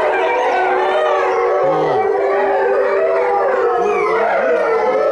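A pack of Chinese wolves howling in chorus: many overlapping howls rising and falling in pitch, with one long level note held underneath.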